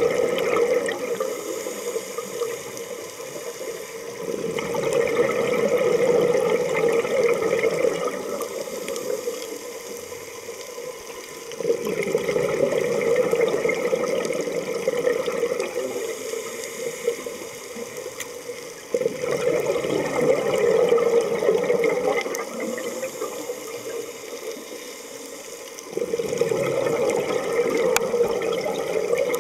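Scuba diver's own breathing through a regulator underwater: a rush of exhaled bubbles about every seven seconds, with quieter inhalations between.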